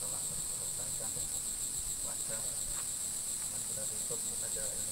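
A steady, high-pitched drone of insects from the surrounding forest, with faint voices underneath.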